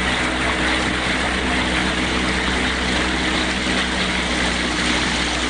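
Water washing and splashing against rocks, a steady rushing, with a constant low engine-like hum underneath.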